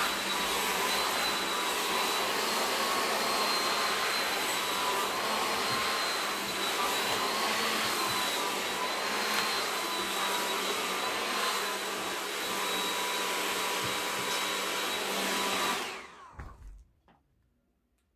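Handheld hair dryer running steadily, blowing air through a wig, a rush of air with a high motor whine over it. It is switched off about 16 seconds in and winds down within a second.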